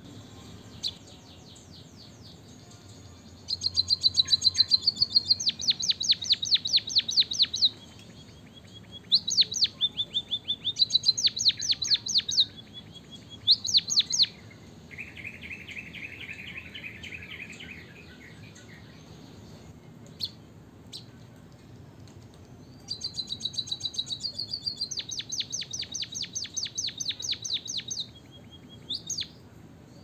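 White-headed munia (emprit kaji) singing: several bouts of rapid, high chirping trills, each lasting a few seconds, with a lower buzzy trill midway and a few single chirps between bouts.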